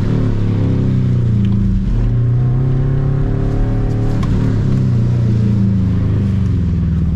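Subaru Impreza 2.5 RS flat-four engine heard from inside the car during an autocross run, its pitch falling, climbing again, then easing off as the driver lifts and accelerates between corners, over a steady hiss.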